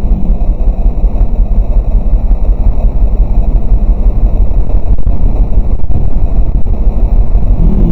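Steady low rumble of a car on the move, road and engine noise picked up inside the cabin by a dashcam microphone.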